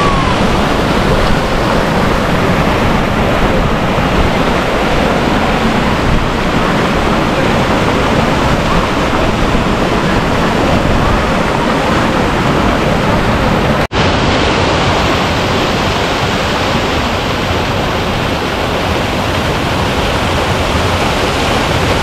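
Fast water rushing and splashing down rock cascades from a small waterfall, a loud steady rush that breaks off for an instant about fourteen seconds in.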